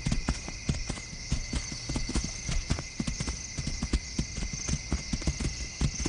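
Hoofbeats of gemsbok (oryx) walking on dry ground: irregular soft knocks, several a second. A steady high-pitched ringing, like night insects, runs behind them.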